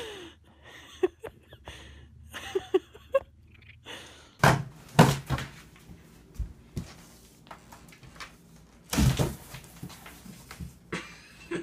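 A few knocks and thuds in a small room, the loudest about four and a half to five seconds in and again about nine seconds in.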